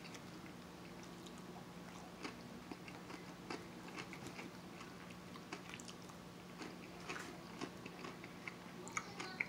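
Close-miked chewing and biting of seafood salad, with many small scattered mouth clicks and smacks and a denser run of them about nine seconds in. A faint steady low hum sits underneath.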